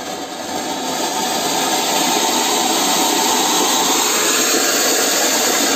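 Big-size anaar (fountain firework) burning with a steady hiss of spraying sparks, building over the first couple of seconds and then holding strong: this fountain is burning well, not fizzling.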